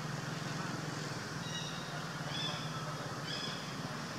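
Steady outdoor background noise with a low hum. Three short, high-pitched chirps come in the middle, each about a third of a second long and spaced under a second apart.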